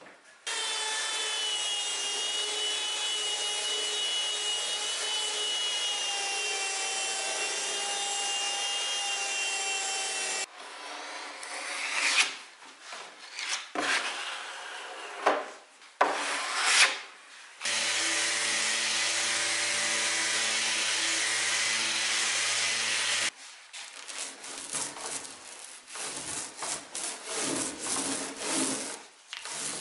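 A steady machine whine runs for about ten seconds and then cuts off. Next come irregular rasping strokes of a steel putty knife spreading white filler across a wooden cabinet top. A lower steady machine hum follows for about six seconds, then uneven strokes of a brush working the filler over the wood.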